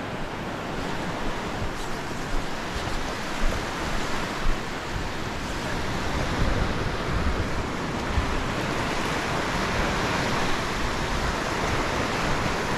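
Surf breaking and washing up a sandy beach: a steady rush of waves.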